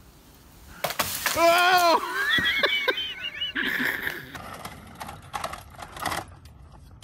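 A sudden crack about a second in, then a person's loud, high-pitched cry that wavers and rises for about two seconds, followed by a rustling crash into leafy bushes with scattered crackling of twigs.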